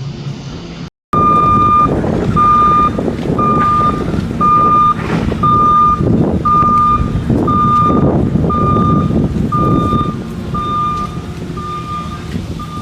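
A construction vehicle's backup alarm beeps steadily about once a second over the loud rumble of heavy machinery, as the vehicle reverses. The sound starts after a short break about a second in.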